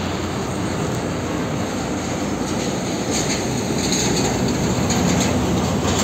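Heavy diesel tractor-trailers passing close by: a Hino Ranger tractor unit hauling a container semi-trailer rumbles past with tyre noise and rattling from the trailer, growing a little louder as a second tractor-trailer follows. Short high-pitched squeaks come in from about three seconds in.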